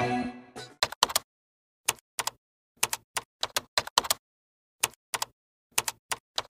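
Typing sound effect: short keystroke clicks, a few a second and often in pairs, with dead silence between them. The tail of a tune fades out under the first click, less than a second in.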